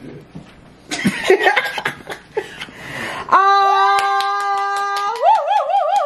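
Hands clapping with laughter and voices. About three seconds in, a louder sustained chord of several steady tones sets in suddenly, its pitch wavering near the end, while the clapping goes on.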